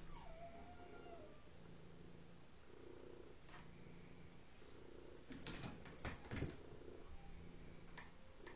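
Domestic cat purring softly, the low hum swelling and fading with each breath. A short falling whine sounds right at the start, and a few short knocks come about six seconds in.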